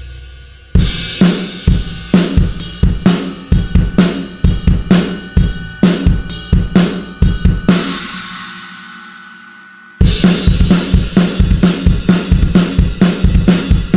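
Sampled drum kit from the Blasting Room Signature Series Drums Kontakt library playing a beat of kick, snare and cymbal hits. It stops with a ringing cymbal that fades away, then a faster, denser pattern comes in about ten seconds in.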